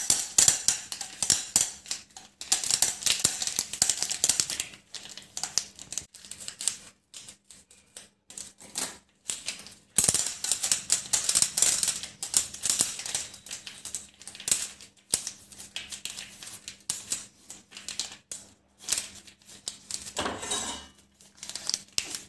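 Dry popcorn kernels pattering and rattling into a nonstick pan as they are shaken out of a packet, in several bursts of rapid clicks with quieter gaps between.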